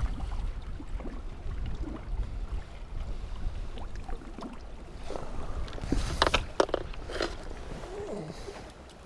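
Wind rumbling on the microphone and water lapping around an angler's platform. About five seconds in, a short cluster of clicks and rattles comes as the landing net is handled.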